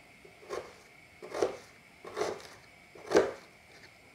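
Kitchen knife cutting a peeled onion on a cutting board: four separate cuts, each ending in a knock of the blade on the board, a little under a second apart.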